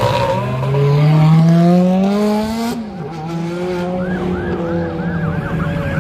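Car engine revving up, its pitch climbing steadily for about two seconds before dropping sharply and settling to a steady running note. From about four seconds a high warbling tone repeats quickly, about three times a second.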